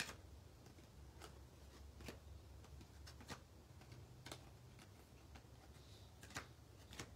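Faint, soft clicks at irregular intervals as a stack of basketball trading cards is flipped through by hand, card by card.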